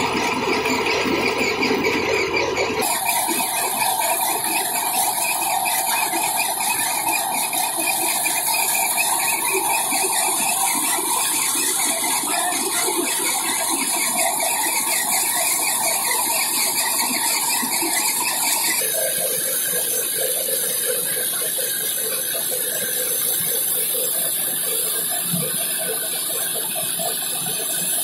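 Tractor-powered bajra (pearl-millet) thresher running at working speed while stalks are fed into it: a loud, continuous mechanical clatter and squeal from the drum, pulleys and belts. The sound changes character abruptly about three seconds in and again about two-thirds of the way through.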